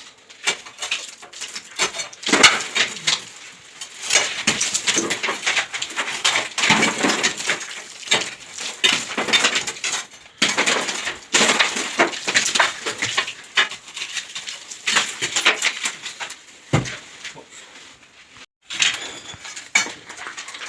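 Metal hand tool chipping and scraping at a ceiling's plaster, damaged by damp, in a fast irregular run of sharp metallic clinks and scrapes, with short pauses about halfway through and near the end.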